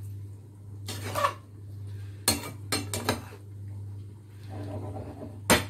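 Metal spatula scraping and knocking against a frying pan while stirring chicken in a thick cream sauce, in scattered clinks and scrapes: one about a second in, a quick cluster about two to three seconds in, and two more near the end. A steady low hum runs underneath.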